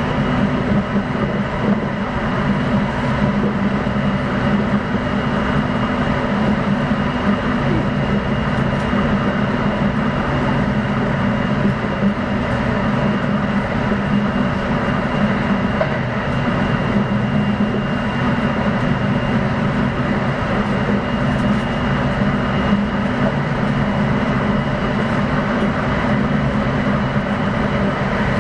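Kintetsu 9020 series electric train running at speed, heard from inside the car: a steady rumble of wheels and running gear with a faint steady high whine over it.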